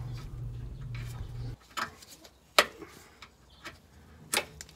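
A few sharp clicks and snaps from gloved hands working rubber grommets out of the mounting holes in a car's steel frame rail. The three loudest come near the middle and near the end. A low steady hum stops about a second and a half in.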